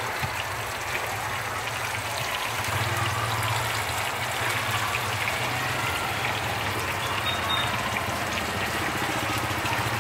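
Hot oil sizzling steadily in a street-cart deep fryer, an even hiss with a steady low hum underneath.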